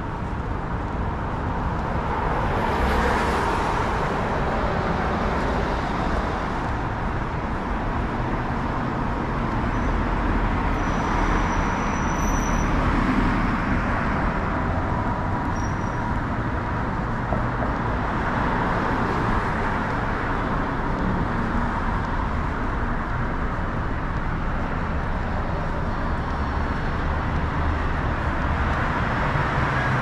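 Road traffic on a wide multi-lane city boulevard: a steady wash of car tyres and engines as vehicles drive past.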